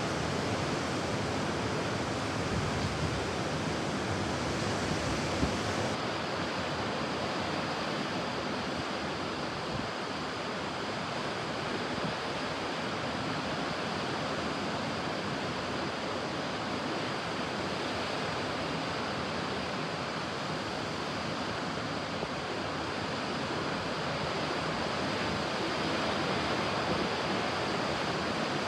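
Ocean surf: a steady wash of waves breaking and rolling, swelling slightly near the end.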